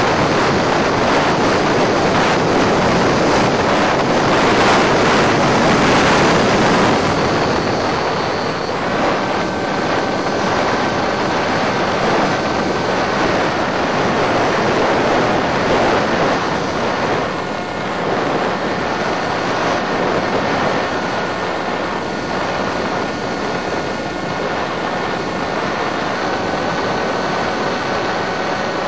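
EasyStar electric model plane in flight: a steady rushing of wind with the motor running, loudest in the first seven seconds, with faint steady motor tones from about nine seconds in.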